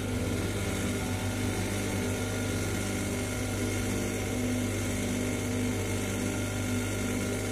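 Small bench lathe (a diamond-cutting lathe) running steadily with a constant motor hum. In the second half a rudraksha bead is held on the tiny cutting tool spinning in the chuck, reaming its hole wider.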